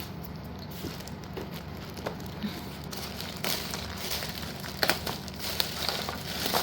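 Plastic packaging rustling and crinkling as packets of slate pieces are handled, busier in the second half, with a few sharp clicks toward the end.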